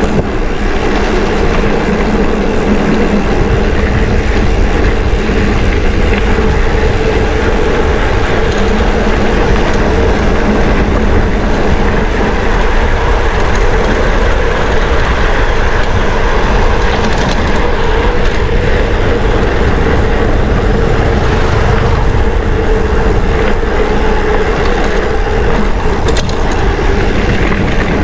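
Mountain bike rolling fast downhill on a dirt road: tyres rumbling over the dirt and loose stones, the bike rattling, with wind on the microphone, a steady loud din.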